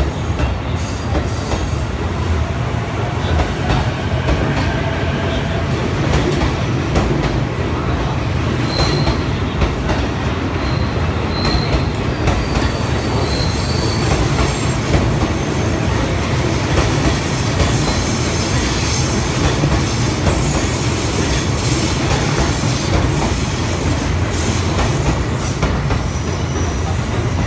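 JR East suburban electric multiple-unit train running past alongside the platform, a steady loud rumble of wheels and running gear, with a few short high-pitched wheel squeals about a third of the way through.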